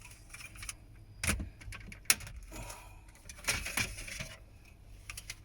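Irregular clicks, taps and light metallic rattling from dashboard trim screws and tools being handled, with a sharp click about two seconds in and stretches of scraping and rustling around it.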